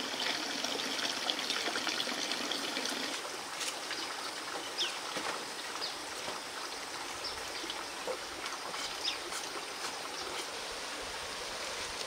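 Steady trickle of running water, with a few short bird chirps over it; the hiss thins a little about three seconds in.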